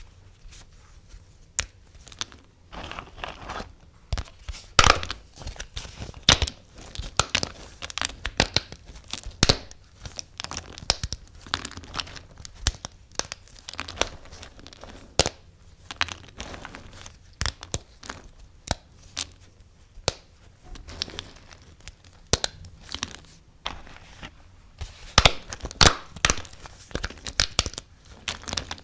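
Knife cutting through bar soap: a run of crisp, crackling cuts and sharp clicks, irregular and several a second, with a cluster of louder snaps near the end.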